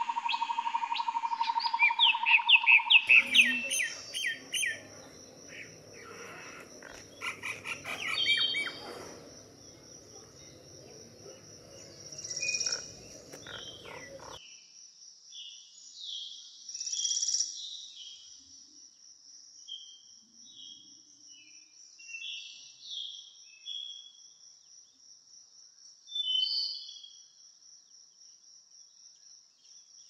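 A steady tone with a rapid run of chirps opens, then a noisy stretch with clicks that stops abruptly about halfway in. After that, scattered short chirping bird calls sound over a steady high-pitched insect trill.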